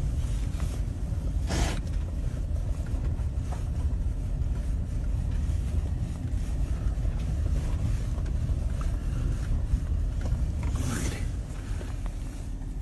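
Road noise inside a moving car: a steady low rumble, with two brief louder whooshes, about a second and a half in and again near the end.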